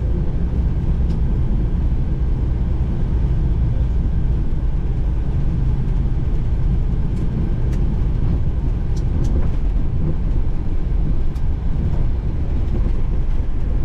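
Steady low rumble in the cockpit of a Boeing 737-800 rolling down the runway just after landing, with a few faint clicks partway through.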